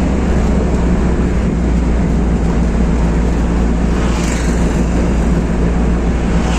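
Steady engine and road noise of a car on the move, heard from inside its cabin.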